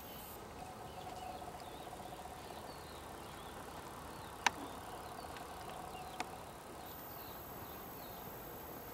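Faint, rapid pulsed trill of an insect in two stretches, one of about two seconds and one of about a second. Between them come two sharp clicks, the louder one about four and a half seconds in.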